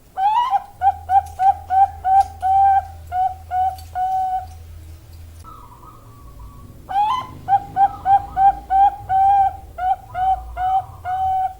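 Female Bangkok-strain zebra dove (perkutut) singing twice: each phrase opens with a rising note and then runs into about a dozen short, evenly spaced coos. The phrases are separated by a pause of about two seconds.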